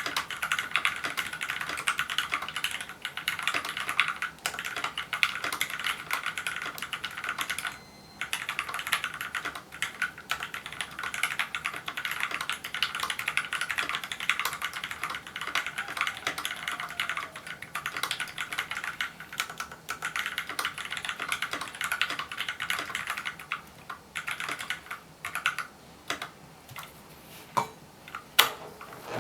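Fast, continuous typing on a custom 65% mechanical keyboard with lubed and filmed Gateron Milky Yellow linear switches on a brass plate in an aluminium case. The typing breaks off briefly about eight seconds in and turns sparser near the end, with a few louder single keystrokes.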